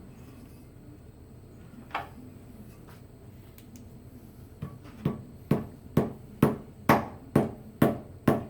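Hammer tapping a steel punch, metal on metal: a single strike, then a steady run of sharp taps about two a second, each ringing briefly, working loose an engine part that is stuck tight.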